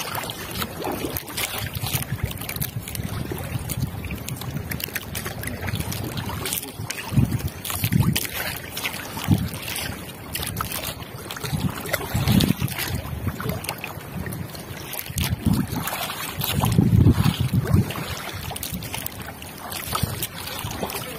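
Water lapping against the hull of a small boat in low swells, with wind on the microphone and scattered small clicks and knocks.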